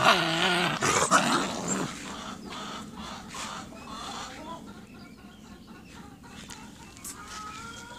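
Two dogs play-fighting, giving a loud burst of growling and snarling for about the first two seconds, then quieter scuffling, with thin bird-like calls near the end.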